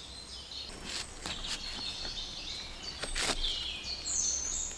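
Songbirds singing in short, stepped phrases, with several brief rustles and knocks from a trail camera being handled on its strap around a tree trunk. The loudest knock comes about three seconds in.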